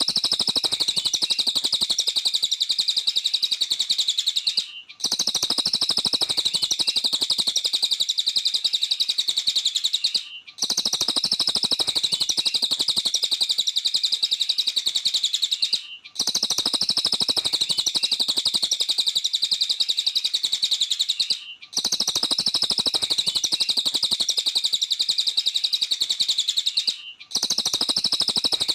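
A cililin songbird sings a rapid, shrill chattering song in long unbroken phrases of about five and a half seconds. Each phrase is cut by a brief pause, and the phrases repeat at even intervals.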